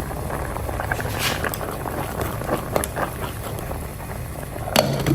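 Food cooking in a pot, a steady bubbling and crackling with many small scattered clicks, and one sharper knock near the end.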